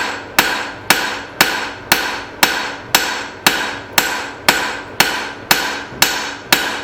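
Hammer blows on hot leaf-spring steel over an anvil, a steady rhythm of about two strikes a second, each with a brief metallic ring, as the bar is drawn out into a long taper.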